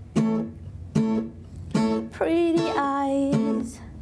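Steel-string acoustic guitar strummed in a slow, even rhythm, about one chord every 0.8 seconds, each left to ring. A wordless voice comes in over the chords about two seconds in.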